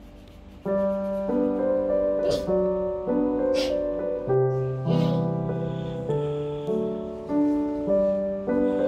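Background music: a gentle solo piano piece with a slow melody over soft chords, starting about a second in.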